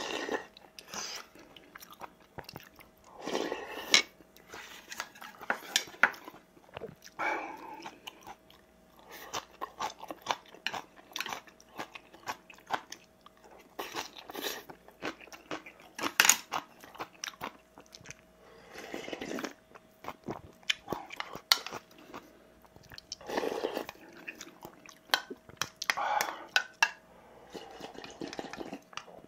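A person eating: chewing and crunching vegetable side dishes and rice soaked in soup, with small clicks from a spoon and chopsticks and short noisy bursts of slurping. Near the end the soup is drunk straight from the bowl.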